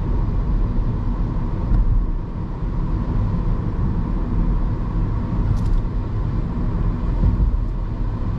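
Steady rumble of a moving vehicle, with a faint steady hum above it.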